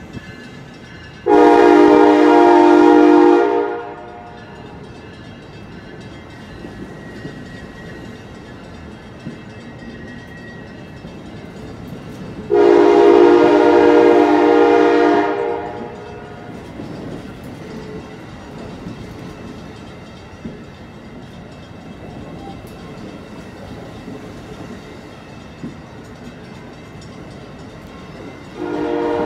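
Amtrak passenger train's air horn sounding two long blasts about ten seconds apart, with a third starting near the end, over the steady rumble and clatter of passenger cars rolling past on the rails.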